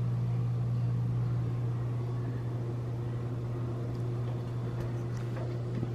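A steady low hum of indoor room tone, with a faint knock or two near the end.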